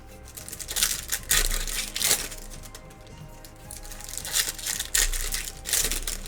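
Plastic and foil wrapping of trading-card packs crinkling and tearing in two bouts as a new box is opened, over background music.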